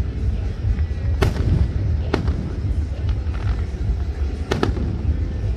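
Fireworks going off: sharp bangs about a second in and about two seconds in, then a close double bang near the end, over a steady low rumble.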